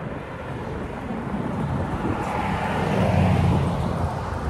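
A motor vehicle passing on the road, its rushing engine and tyre noise growing louder to a peak about three seconds in, then easing off a little.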